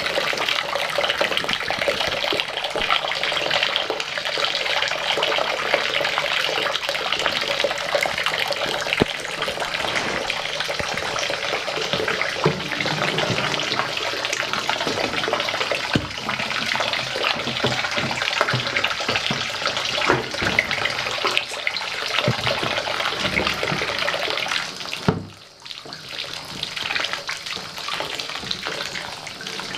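Water running steadily from a bathtub tap into the tub, with occasional knocks. The running water dips briefly about twenty-five seconds in.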